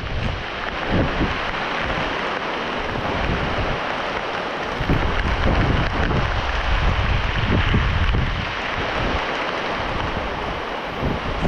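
Heavy rain falling as a steady hiss, with gusts of wind buffeting the microphone in uneven low rumbles.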